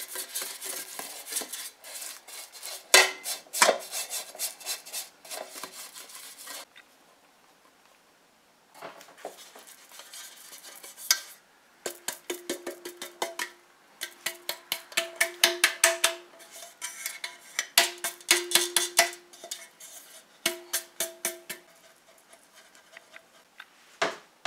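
A brush scraping and dabbing margarine around the inside of a metal bundt pan. From about halfway, the pan is shaken and tapped in short bursts to spread flour, its metal rattling and ringing. A single knock comes near the end.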